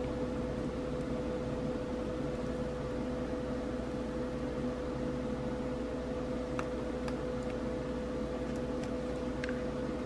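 Steady mechanical hum with a constant tone, with a few faint ticks scattered through it.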